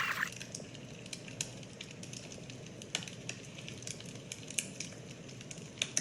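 Wood fire crackling, with irregular sharp pops and snaps over a low steady hiss.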